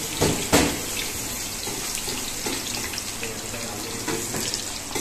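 Boiled chickpeas coated in cornflour and maida deep frying in hot oil: a steady sizzling hiss full of small crackles, as the chickpeas crisp up golden. Two louder cracks come in the first second.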